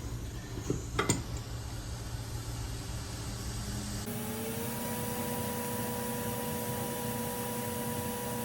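Two sharp clicks over a low hum. About four seconds in, a small electric motor or fan whirs up, its pitch rising briefly before it settles into a steady hum.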